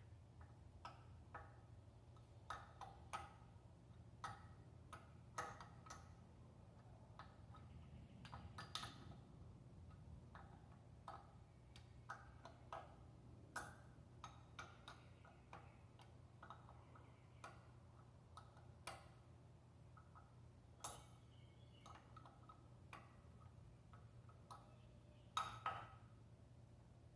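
Faint, irregular metallic clicks of a wrench working on the nuts and studs that hold a Cummins 4BT diesel's injection pump on. The clicks come singly or in pairs, a few seconds apart, with a sharper pair near the end.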